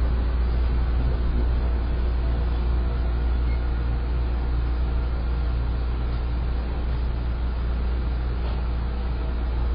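Seibu 101-series electric train standing still, its onboard equipment giving a steady low hum with faint steady tones above it.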